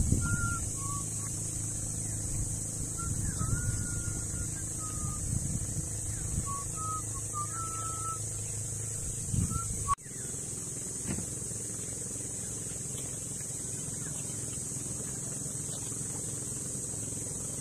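A small engine running steadily at a low hum. Over it, in the first half, come a string of short high whistled notes, and the sound briefly drops out about ten seconds in.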